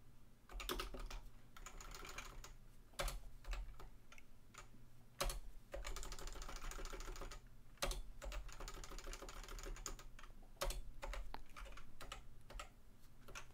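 Typing on a computer keyboard, in short runs of quick keystrokes broken by pauses, with a few louder single clicks between the runs.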